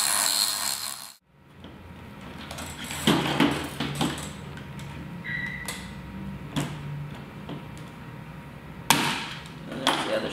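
A Dremel rotary tool grinding down rivets for about the first second, stopping abruptly; then scattered light clinks and knocks of small metal camera parts and tools being handled.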